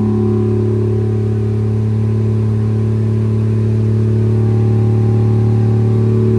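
Toyota Supra's 2JZ-GTE inline-six engine idling steadily through its new exhaust.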